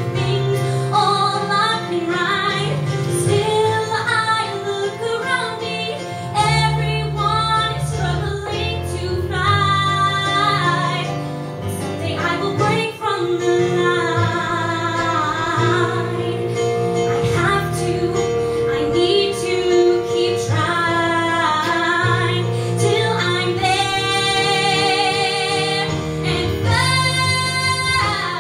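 A woman singing a musical theatre song into a microphone over instrumental accompaniment. She holds several long notes with vibrato, the strongest and highest near the end.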